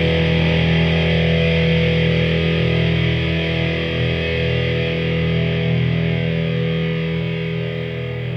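Background music: a distorted electric guitar chord held and ringing out, slowly fading.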